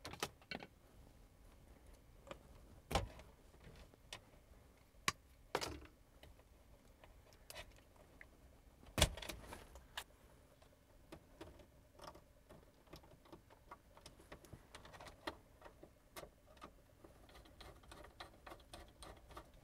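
Faint, scattered metal clicks and snips of electrical wires being cut back and fitted under the screws of a breaker panel's neutral bar, with a few sharper clicks about three and nine seconds in.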